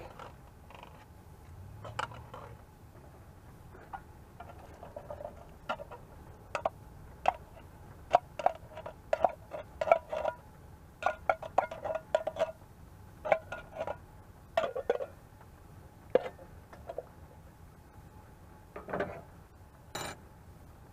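Metal clinking and knocking as an open tin can of corn is tapped and scraped against a stainless steel soup pot to empty it, short ringing strikes in quick runs through the middle, with a couple more near the end.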